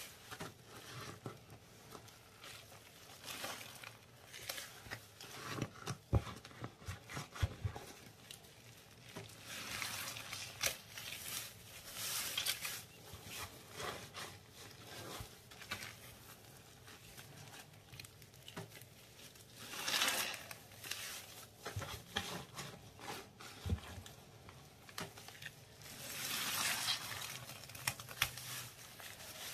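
Gloved hands squishing wet paste and squeezing a paste-soaked sponge: irregular wet squelching and crackling, with louder stretches about a third of the way in, two-thirds of the way in and near the end.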